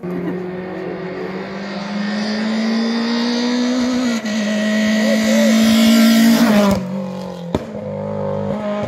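Hill-climb race car engine at high revs, its note climbing and growing louder as the car comes up the hill, with a short break about four seconds in. The sound peaks and drops away near the end, followed by a sharp click and a steadier engine note from a car further off.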